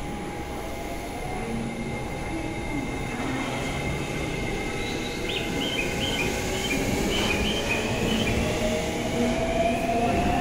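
E491 electric test train pulling out and rolling past at close range. Brief high squeaks come in the middle, and near the end the train's running noise grows louder and its motor whine rises in pitch as it gathers speed.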